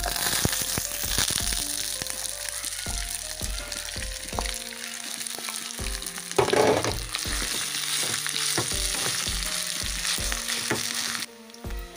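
Mashed boiled potatoes sizzling in hot oil with tempered mustard seeds, cumin and curry leaves, stirred and scraped with a spatula. The sizzle cuts off abruptly near the end, over background music with a steady beat.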